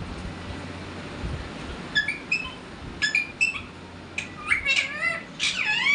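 Pet parakeet calling: a few short high chirps about two seconds in, then a quicker run of calls that slide up and down in pitch, loudest near the end.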